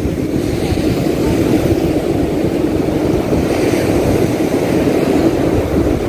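Wind buffeting the microphone on an open surf beach: a steady, low rumbling noise.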